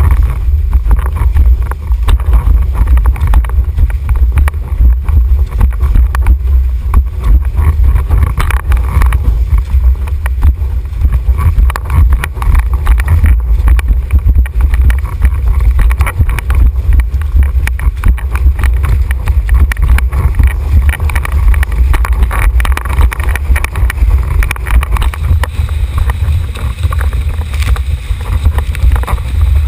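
Wind buffeting a GoPro microphone on a windsurf boom, a loud, constant low rumble that rises and falls, mixed with rushing water from a formula windsurf board planing over choppy water.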